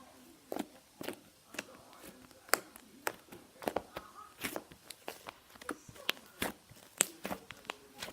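Fluffy slime being squished and poked by hand, with irregular sharp pops and clicks, about two or three a second.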